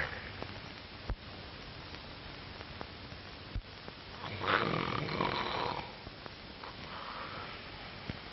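A rasping, snore-like breath about four and a half seconds in, lasting over a second, with a fainter one near the end, over the steady hiss of an old film soundtrack and a couple of faint knocks.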